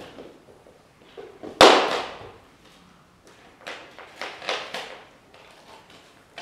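Puppies playing on a blanket over a wooden floor: one loud thump about one and a half seconds in, then several short bursts of scuffling and pattering paws.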